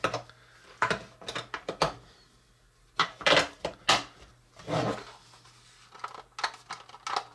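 Plastic clicks and clatter of two AA batteries being taken out, turned around and pushed back into a small plastic battery compartment, loudest about three seconds in.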